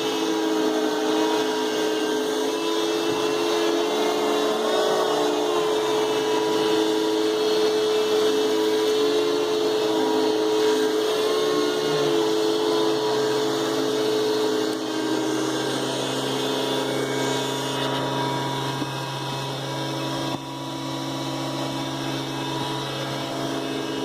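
Freshly refurbished Hoover Futura 4.0 peak horsepower canister vacuum (model S3557) running steadily, a motor hum over the rush of suction. About fifteen seconds in its tone shifts lower and it runs on at a slightly lower level.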